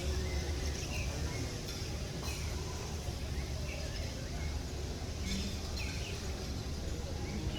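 Open-air ambience: a steady low rumble with short, high, falling bird chirps repeating about once a second.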